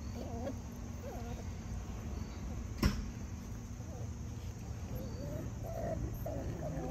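Six-week-old Australian Labradoodle puppies at play, giving short, high little whines and whimpers, more of them near the end. A single sharp knock about three seconds in.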